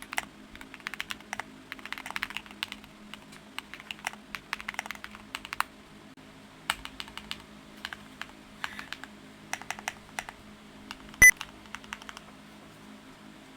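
Qwertykeys QK75 mechanical keyboard with all-stock parts being typed on in quick bursts of keystrokes with short pauses. About eleven seconds in comes one much louder key clack with a brief ring, and the typing stops shortly after.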